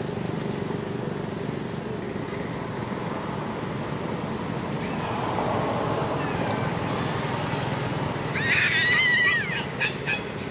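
Over steady background noise, a young long-tailed macaque gives a run of high, wavering squeals about eight seconds in, lasting about a second, then a few short squeaks.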